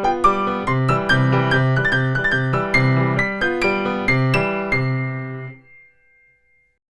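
Piano playing a lively beginner's piece: many quick notes in the treble over a repeated low bass note. The piece ends about five and a half seconds in, and the last notes die away quickly.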